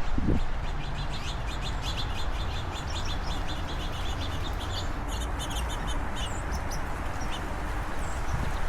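Small songbirds chirping: a fast run of short high chirps, several a second, for about five seconds, then a few single calls, over a steady low background noise. A short low sound comes right at the start.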